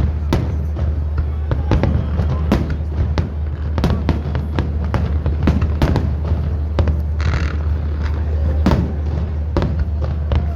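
Fireworks salute: shells bursting in sharp bangs, about one a second at uneven intervals, with a short burst of crackle a little after seven seconds, over a steady low hum.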